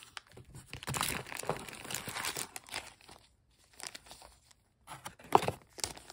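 A clear plastic bag crinkling and rustling as a bagged one-screw card holder is pulled out and handled, with a single sharp tap about five seconds in.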